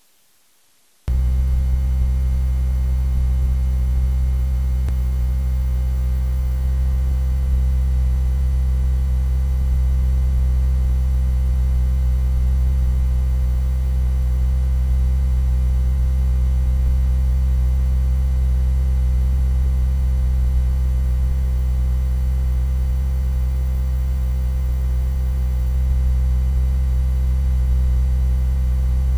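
A loud, steady low hum made of several stacked tones that does not change in pitch or level. It cuts out for about the first second, then comes straight back.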